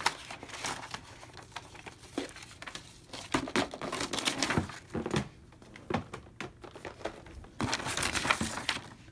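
Paper sheets and packaging rustling and crinkling as they are handled, in irregular bursts. The bursts are loudest from about three to five seconds in and again near the end.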